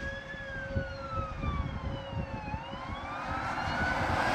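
A siren wailing, its pitch sliding slowly down and back up over about four seconds, with a second steady siren tone held underneath. A low, gusty rumble runs beneath both.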